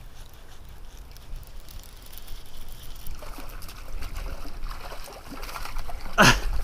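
Water trickling and splashing around a kayak on a flowing river. The splashing grows busier about three seconds in, and a sharp splash comes near the end.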